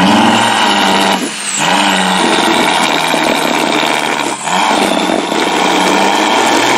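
Off-road competition vehicle engines running hard under load on a steep dirt climb. The loud, steady engine sound drops off briefly about a second in and again just after four seconds, then picks back up.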